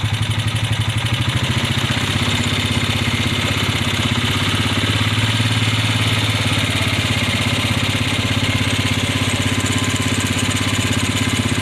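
Engine idling steadily with an even, fast pulsing beat, the low hum swelling slightly about five or six seconds in.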